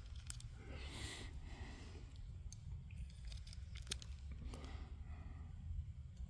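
Quiet pause with a low background rumble, a few faint light clicks and soft rustling, like small handling noises; no gunshot.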